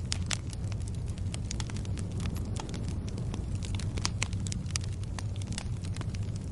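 Fire crackling: irregular sharp pops and snaps over a steady low rumble of the flames.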